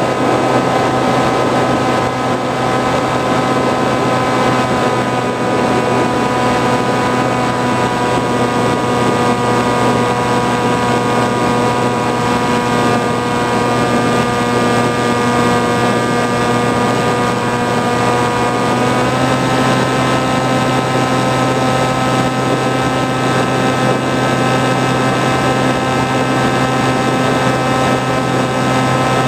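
Motor and propeller of an FPV flying wing heard from on board in flight: a steady, even hum over a rush of air, its pitch stepping slightly higher about two-thirds of the way through as the throttle is opened a little.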